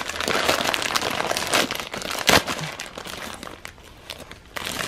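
Clear plastic bag crinkling as hands pull at it to open it, with one sharp snap a little past halfway.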